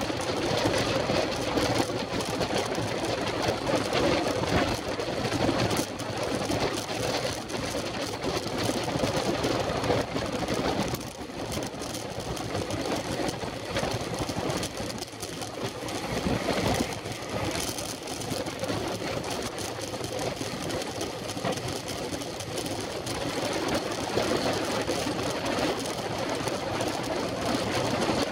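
Wind rushing and buffeting over a bike-mounted camera's microphone at road-sprint speed, about 50–70 km/h, with a fast mechanical rattle from the road bike's tyres and drivetrain on the tarmac.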